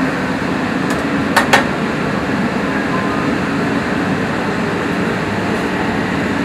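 Steady hum of a street-food kitchen, with two quick sharp clicks close together about a second and a half in.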